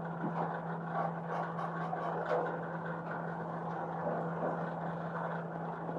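A steady low background hum, with faint small clicks and rustles from the plastic cap of an oil bottle being handled and worked.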